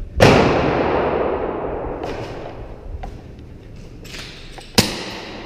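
A loud bang with a long rushing tail that fades over about two seconds, then a second sharp bang near the end.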